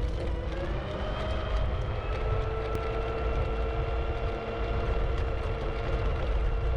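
The 500-watt geared motor of an IO HAWK Legend electric scooter whining under way. The pitch rises in the first second as the scooter speeds up, then holds steady, over a low rumble. This is the loud whine typical of its geared motor.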